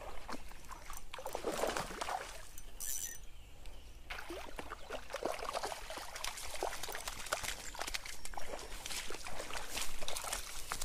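Hooked rainbow trout thrashing at the surface of a small creek as it is played in, water splashing and sloshing irregularly.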